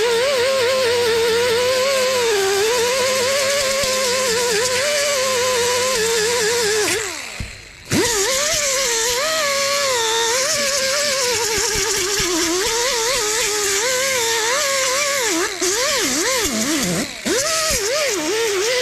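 Pneumatic mini grinder with a 24-grit disc grinding paint off a steel motorcycle fender: a loud air-tool whine with hiss, its pitch wavering as the disc is pressed on and eased off. About seven seconds in the trigger is let go and the whine falls away, then starts up again a second later; it cuts out briefly twice near the end.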